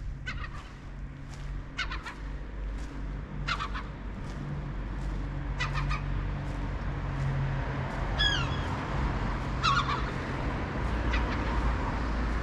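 Gulls calling, short sharp calls every second or two, one with falling notes about eight seconds in, over a steady low rumble.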